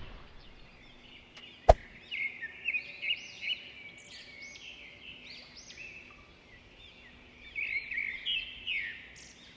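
One sharp click, then a run of quick, high chirps that sweep up and down, like birdsong, in two bursts.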